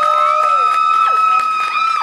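A crowd of children cheering and screaming, several voices overlapping in long, high, held shrieks that each rise in, hold a steady pitch and fall away.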